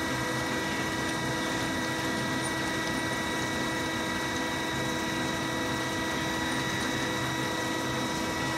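Steady hum of running machinery, holding several constant pitches without a break.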